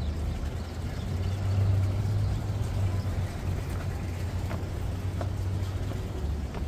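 A low, steady engine hum from a vehicle, swelling about a second in and easing off again.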